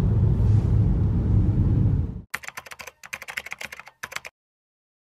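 Steady low rumble of road noise inside a moving car, cut off about two seconds in by a quick run of computer-keyboard typing clicks lasting about two seconds.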